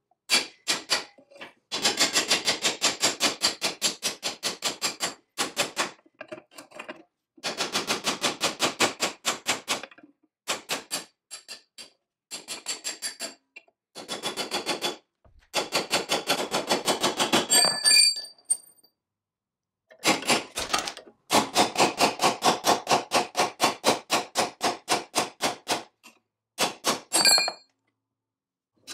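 Rapid, evenly spaced metal-on-metal blows on a clamped cast-iron part of a vintage saw filer, about seven a second, in bursts of one to four seconds with short pauses between.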